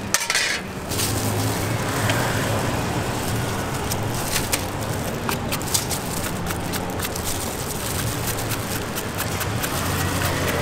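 Street traffic noise with a vehicle engine running steadily, and scattered light clicks over it. The sound drops out briefly just after the start.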